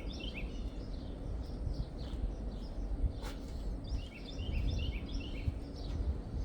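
A songbird singing quick runs of short chirps, at the start and again about four seconds in, over a steady low rumble of outdoor noise. A single sharp click comes near the three-second mark.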